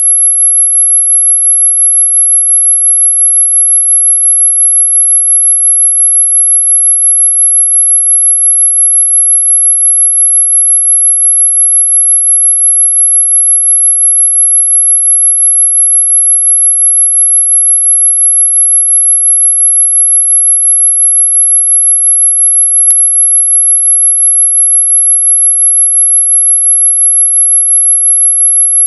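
A single pure, very high-pitched electronic tone, held loud and perfectly steady without any change in pitch.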